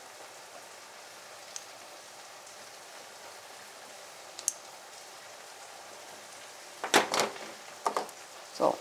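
Steady sizzling of food frying in a pan, with a few sharp clicks and knocks near the end.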